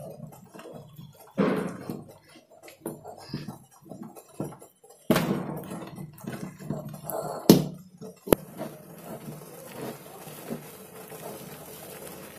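Wooden kali-stirring stick scraping and knocking against a pot as thick rice-flour batter is stirred, with irregular sharp knocks, the loudest a little past halfway.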